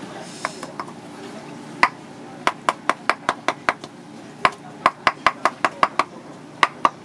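A large top shell (turban snail shell) being rapped again and again on a concrete floor: sharp, hard knocks in quick runs of several a second, starting about two seconds in.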